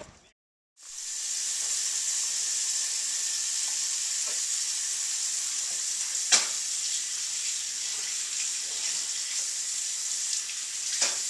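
Bathroom sink faucet running steadily, water splashing into the basin, starting about a second in, with a couple of faint knocks.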